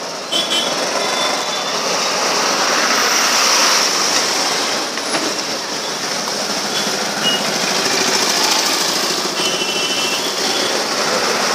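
Dense, steady road-traffic and engine noise, heard from a slow-moving vehicle in congested traffic, with brief high-pitched horn beeps once near the start and a couple of times near the end.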